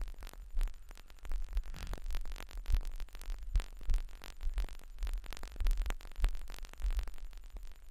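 Wind rumbling on the camera microphone, with many irregular clicks and rustles from handling and gear.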